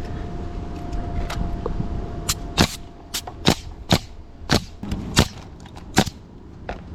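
Roofing nail gun firing nails into asphalt shingles, a quick run of about eight sharp shots irregularly spaced around half a second apart, starting about two seconds in.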